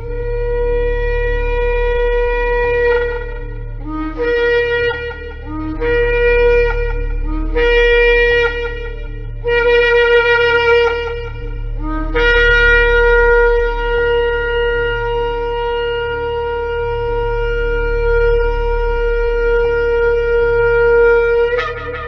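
Shofar (ram's-horn trumpet) blowing: a long blast, then three short blasts, a medium blast, and finally a very long held blast of about nine seconds that ends with a brief rise in pitch. Each blast jumps up from a lower note into its bright, reedy held tone.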